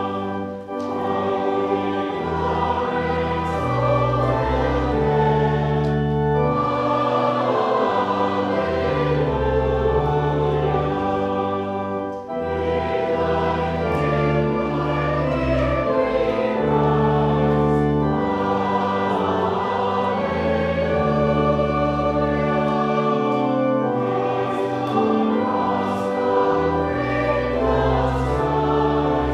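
Choir singing a slow hymn in long, sustained chords that change every few seconds over deep held bass notes, with the long echo of a large church.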